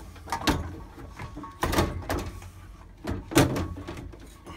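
Knocks and clunks from a Worcester Bosch heat cell being handled and worked back into place inside the boiler casing: three main knocks, the last and loudest about three seconds in.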